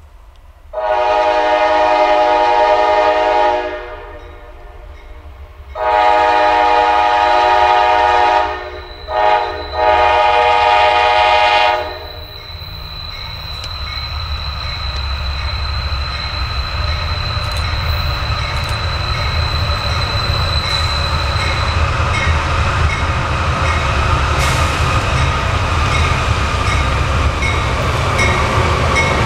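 CSX diesel freight locomotive sounding its air horn chord four times, long, long, short, long, the standard grade crossing signal. Its engine and wheel rumble then builds steadily louder as the train comes out of the tunnel toward the listener.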